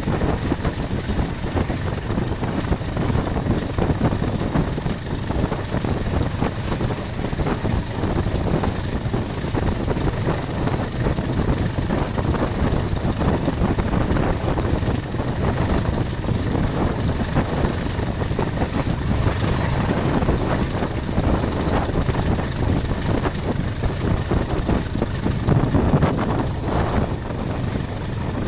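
English Electric Class 20 diesel locomotive running at the head of the train, its engine's steady drone mixed with the rumble of the coach wheels on the track, heard close from the open window of the coach behind it.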